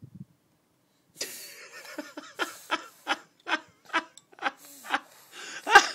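Baby laughing in a rhythmic run of short giggles, about three a second, with a louder one near the end.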